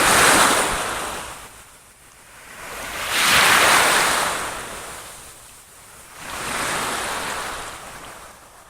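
Water waves washing in, a rushing hiss that swells and falls away about every three seconds.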